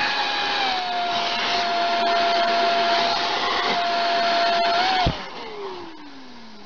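Electric leaf blower running with a steady whine, its pitch dipping slightly about half a second in. About five seconds in it is switched off, and the whine falls away in a long downward glide as the motor spins down.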